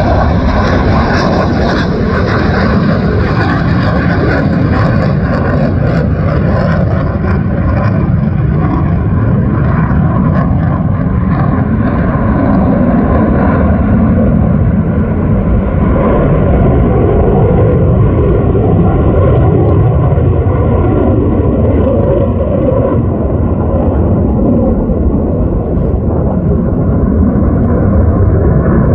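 F-22 Raptor fighter jet's engines, loud and steady as it flies past. The high hiss dulls gradually as the jet draws away.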